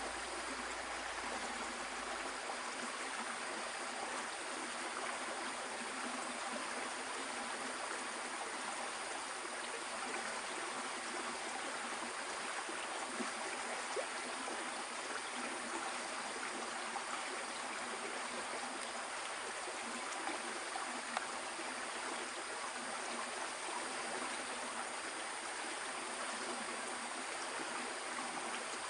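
Shallow stream water flowing steadily, a constant even rushing with a few faint clicks.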